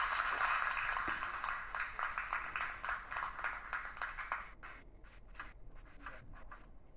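Audience applauding, played back through laptop speakers: dense clapping that thins to scattered claps about four or five seconds in and dies away.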